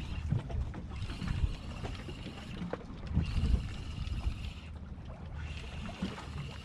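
Wind rumbling on the microphone and water noise aboard a ski-boat at sea, with a fishing reel being wound in short spells, a faint whirr that starts and stops several times, as a small fish is brought up on a jig.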